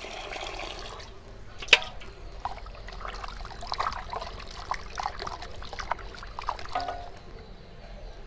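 Tap water running into an aluminium pot of raw chicken pieces, stopping about a second in, followed by a single sharp knock. Then hands slosh and rub the chicken pieces in the water with many short, irregular splashes while the chicken is washed.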